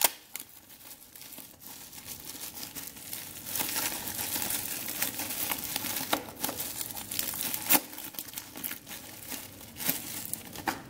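Clear plastic wrapping crinkling and crackling as it is pulled and crumpled off a phone, with a few sharper snaps; the loudest comes right at the start and another partway through.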